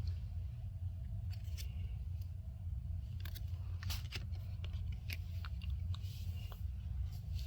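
Packaging from a Pokémon Pokéball tin being handled, with scattered small crinkles and clicks over a steady low hum.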